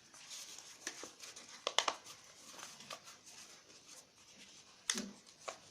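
Origami paper rustling and crinkling under the fingers as a flap is folded inward, with a few sharp crackles, the loudest about two seconds in and another near the end.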